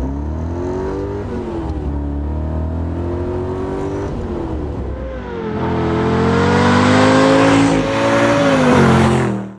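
Pontiac Tempest's big-block Chevy V8 running on the road, its pitch rising and falling with the throttle. From about five seconds in it accelerates hard and gets louder, with a brief dip near eight seconds before it climbs again. The carburetor has been tuned for altitude and the engine pulls cleanly at full throttle.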